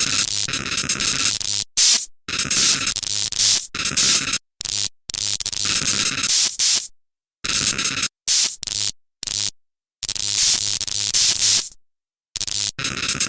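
Harsh electronic noise: loud, dense static blasts that stop and start abruptly, each lasting from a split second to about two seconds, broken by sudden dead silences.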